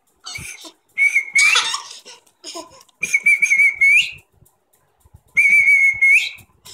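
A person whistling one high, slightly wavering note three times, each held under a second and ending in a quick upward flick, with a baby's short squeals in between.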